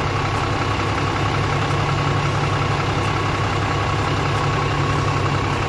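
Isuzu 6HH1 inline-six diesel truck engine idling steadily with its A/C compressor engaged, running while refrigerant is charged into the system.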